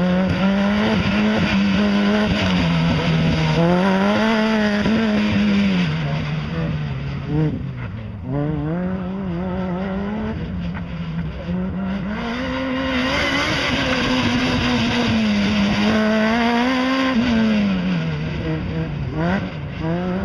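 Supercharged Lotus engine revving hard and lifting again and again through an autocross course, its note climbing on each burst of acceleration and dropping as it slows for the cones.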